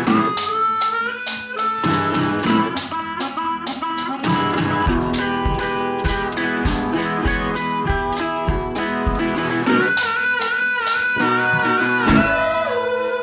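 Background music: guitar-led, with a steady beat.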